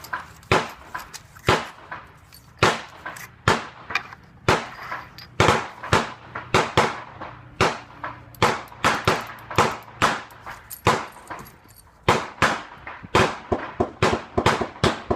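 A rapid, irregular string of rifle shots, about two to three a second with a brief lull near the end, some cracks much louder than others.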